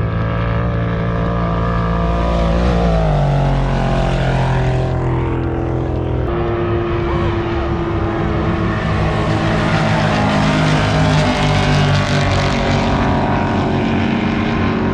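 Off-road race vehicle engine running loud and steady, its pitch dropping about three seconds in and shifting again around six seconds.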